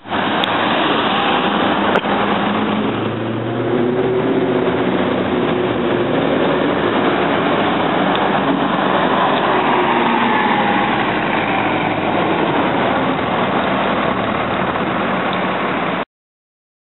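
Diesel engine of a low-floor city transit bus accelerating as it pulls past, its pitch rising and falling, over steady street traffic noise.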